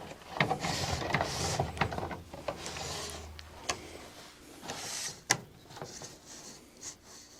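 Rustling and scraping of a pleated air-filter cartridge being worked into its housing, with scattered clicks and knocks as it catches on one side; one sharp knock about five seconds in.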